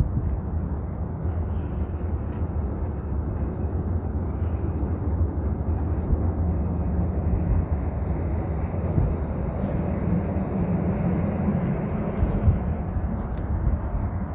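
Steady low outdoor rumble of city background noise, strongest in the low end, with a faint high hiss and a few small ticks.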